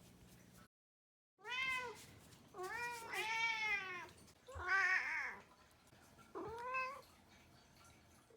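Kitten meowing: five meows, each rising then falling in pitch, the third one longest.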